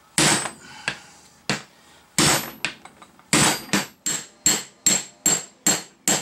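Hammer blows on a steel punch driving a kingpin out of a Datsun pickup's steering knuckle (spindle). About a dozen sharp metallic strikes, each with a brief ring, spaced unevenly at first and then settling into about two and a half blows a second in the second half.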